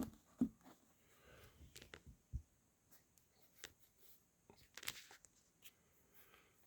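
Faint, scattered handling noises: a few sharp taps and clicks at irregular intervals, the loudest about half a second in and another near the end, over quiet room tone.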